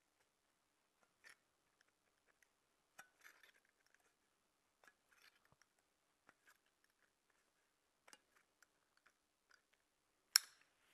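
Pliers crimping the rim of a thin aluminium drink-can base to narrow it: faint, scattered crinkles and small clicks of the metal, with one sharper click shortly before the end.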